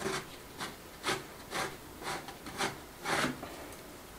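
Gloved hand scrubbing an old wooden ceiling beam with a pad and an acid cleaning mix, in rhythmic back-and-forth strokes about two a second.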